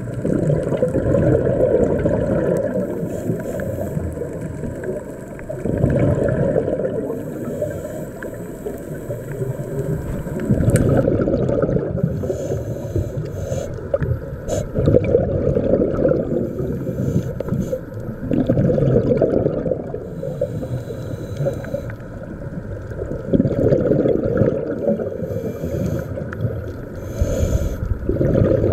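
Muffled underwater sound through a camera housing: a low rush of water that swells every four to five seconds with the bubbling of a scuba diver's exhaled breath from the regulator.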